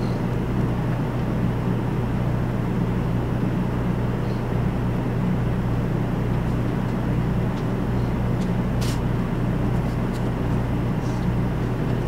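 Steady low hum inside a stationary Series 500 Shinkansen car standing at a platform, from the train's onboard equipment, with a slow pulsing in the lowest notes.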